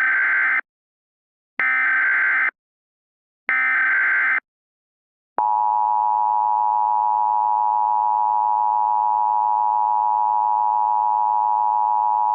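Emergency Alert System tones: three buzzy, roughly one-second bursts of SAME header data about a second apart. About five seconds in, a steady EAS attention tone begins and holds without a break.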